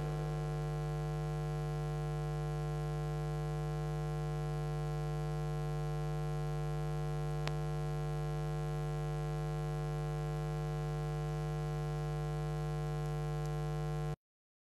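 Steady electrical mains hum with a buzzy stack of overtones, with one faint click about halfway through; it cuts off suddenly shortly before the end.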